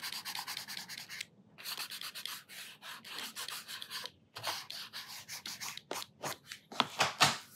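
A handheld eraser scrubbing back and forth on sketchbook paper in quick strokes, rubbing out the pencil under-drawing beneath inked lines. There are a couple of brief pauses, and the strokes turn slower and louder near the end.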